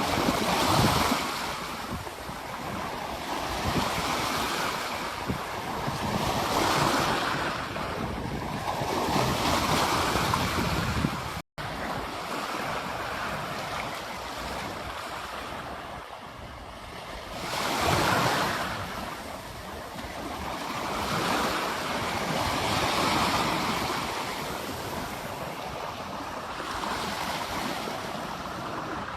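Ocean surf breaking on a beach, waves swelling and washing back every few seconds. The sound drops out for an instant about a third of the way through.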